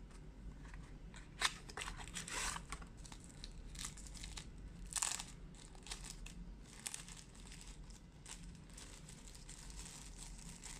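Packaging crinkling and rustling as phone accessories are handled and unpacked, in irregular bursts with a few sharper clicks, the loudest about a second and a half in and again about five seconds in.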